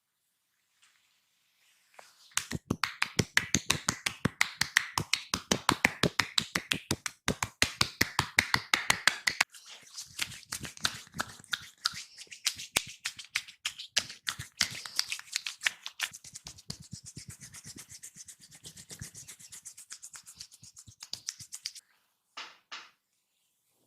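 Massage percussion by hand: fast, even slaps or chops against the body, several a second, loud for about seven seconds, then going on lighter and mixed with rubbing until near the end.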